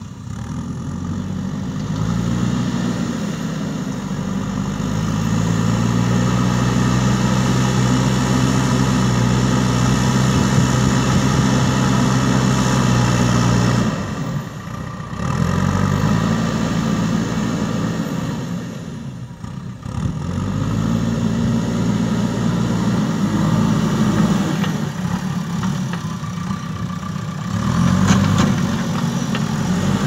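JCB 3DX Super backhoe loader's diesel engine revving up under load and settling back several times as the front bucket works a pile of soil. A short rattle comes near the end.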